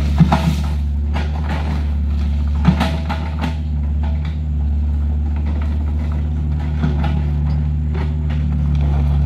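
Heavy diesel engine running steadily under a low, even hum, with a few short sharp clanks.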